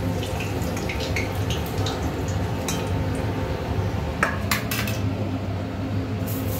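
A metal spoon clinks and scrapes against a steel wok and a steel bowl as fried potato pieces are lifted out of the oil, in scattered knocks with a few sharper ones about four seconds in, over a steady low hum.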